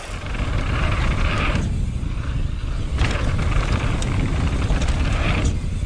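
Mountain bike riding fast down a dirt and loose-stone trail, heard on a rider-mounted camera: steady wind buffeting and tyre rumble.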